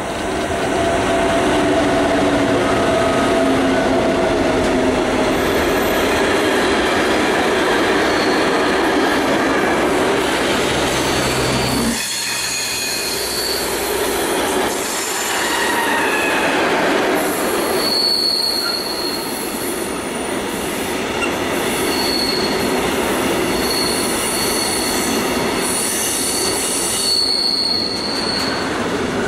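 Two ÖBB Taurus electric locomotives pass with steady tones over the rolling noise. Then a long intermodal freight train of pocket wagons loaded with semi-trailers rolls by, its wheels squealing in high, thin, on-and-off tones from about halfway through.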